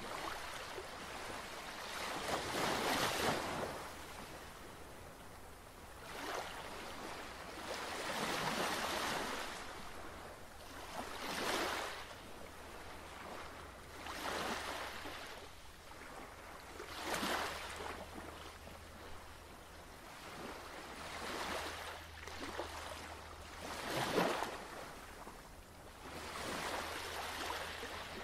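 Ocean waves washing in, with a swell of surf about every three seconds over a steady low hum.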